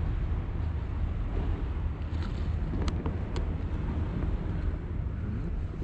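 Steady low rumble of wind on the microphone and sea waves at a rocky shore, with a few faint clicks a little past two and three seconds in.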